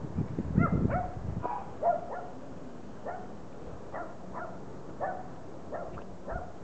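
Six-week-old Border Collie puppies giving short, high yips, one every half second to a second. A low rumble on the microphone runs through the first second and a half.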